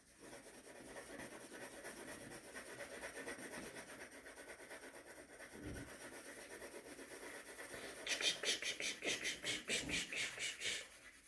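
Pencil shading on paper: a faint continuous scratching, turning into quicker, louder back-and-forth strokes for the last few seconds as an area is darkened.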